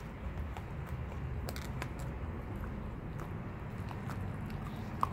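Lycan Shepherd puppies chewing and gnawing on a raw tilapia, with scattered small crunches and clicks of teeth on fish and bone and one sharper click near the end. A low steady rumble runs underneath.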